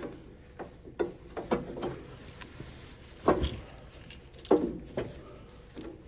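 Irregular knocks, clicks and clatter of hand work with tools and parts on a tractor, about a dozen sharp strokes, the loudest about three and about four and a half seconds in.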